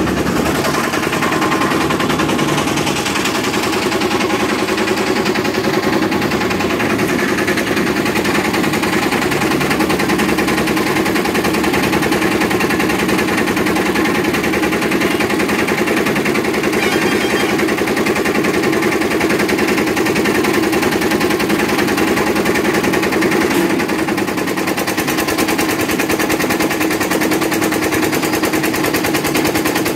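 Tractor diesel engine running steadily close by, a rapid, even chatter of firing pulses, as it drives the hydraulics that tip the trolley.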